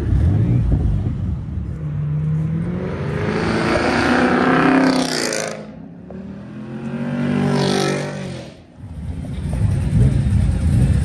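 A car engine accelerating hard: its pitch climbs for about three seconds and drops off suddenly, then climbs again through a second pull that ends about three seconds later, like an upshift on a pull-out.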